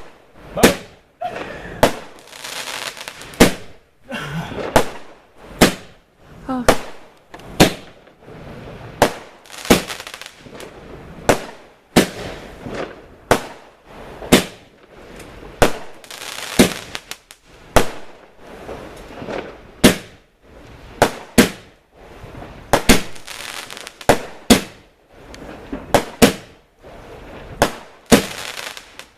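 A 45-shot firework cake (barrage) firing shot after shot, a sharp bang about every half-second to second, with crackle and the odd short whistle between the bangs.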